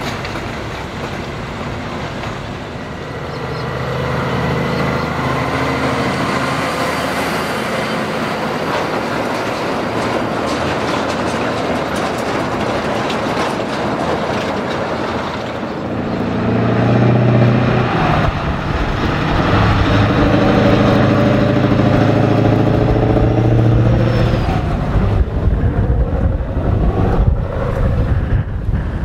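Road trains, diesel prime movers hauling several trailers, driving past: a heavy truck engine running under load over the rolling and rattling of many trailer wheels. The engine sound grows louder about halfway through as one passes close.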